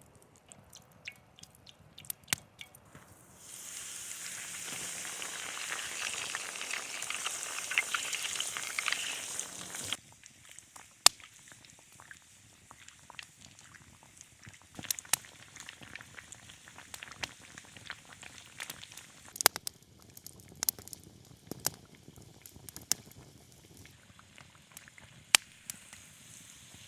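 Campfire cooking: about three seconds in, food starts sizzling loudly on the hot surface over the fire, and it cuts off suddenly some six seconds later. Afterwards only the open fire's scattered sharp crackles and pops remain.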